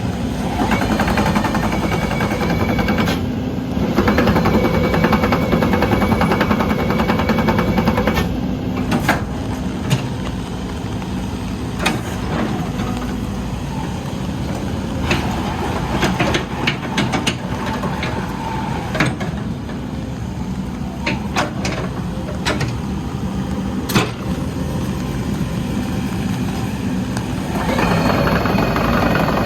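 Caterpillar 308E2 CR excavator's diesel engine running steadily while the machine is operated, louder for the first several seconds and again near the end as the hydraulics take load. Scattered sharp knocks and clanks sound through the quieter middle stretch.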